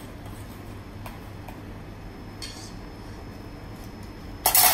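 A few light clicks of a metal spoon against a stainless steel bowl of sauce, over a low steady kitchen background; near the end, one short loud burst of noise as the sauce is tasted from the spoon.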